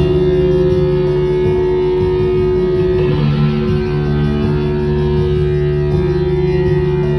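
Live band music led by electric guitars playing held, ringing chords, the notes shifting about three seconds in and again near six seconds.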